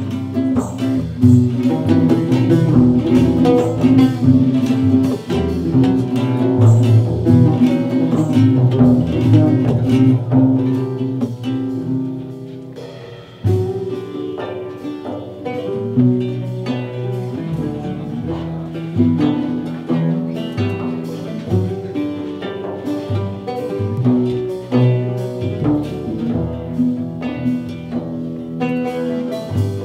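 Live acoustic folk ensemble playing: acoustic guitar and oud plucking over double bass and hand percussion. The music thins out and dips in loudness about thirteen seconds in, then comes back in fuller.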